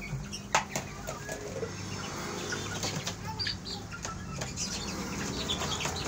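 Wings flapping and young chickens clucking as a crow and chickens scuffle, with a sharp knock about half a second in.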